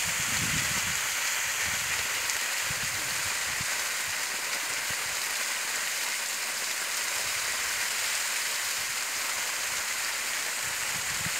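Steady hiss and spatter of a high-pressure water jet shooting from a submersible pump's discharge pipe and falling onto grass, the pump delivering good pressure.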